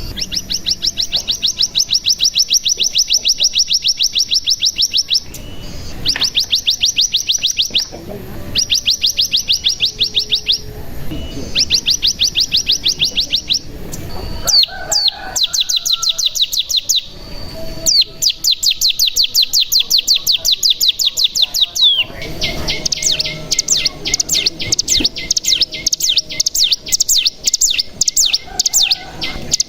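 Ciblek gunung singing long, rapid trills (the 'ngebren' song): fast repeated high notes strung into runs of several seconds each, broken by short pauses.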